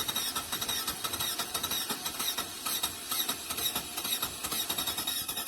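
Cadillac engine running under the open hood, a steady noise with a rapid fluttering pulse and no change in speed.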